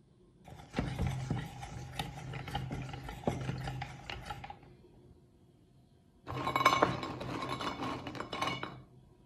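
Hand-cranked metal meat grinder being turned, its auger rattling and grinding in two spells of about four and two and a half seconds.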